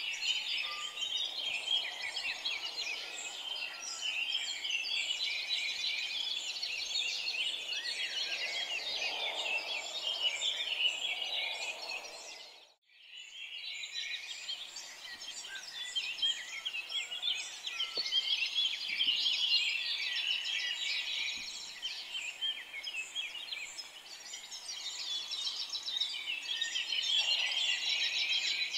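A dense chorus of many small birds chirping and twittering without a break, a birdsong ambience recording. About halfway through it fades out briefly and fades back in.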